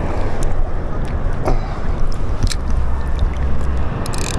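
Wind buffeting the microphone over shallow sea water sloshing, with a few sharp clicks, the last near the end.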